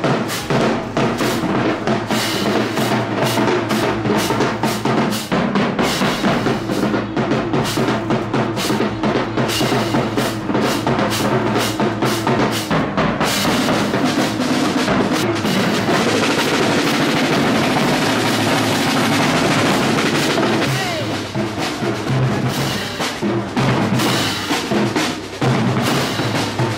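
A street drumline plays a fast, driving beat on marching bass drums and snare-type drums, with hand cymbals crashing; the cymbal wash thickens a little past the middle.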